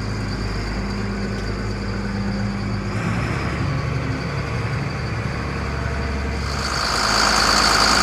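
Diesel engine of a Case IH 9330 Steiger four-wheel-drive tractor running as it is eased out of a shed, heard from inside the cab, still warming up after a cold start. Its low note shifts about three seconds in. Near the end it turns louder and brighter, heard from outside.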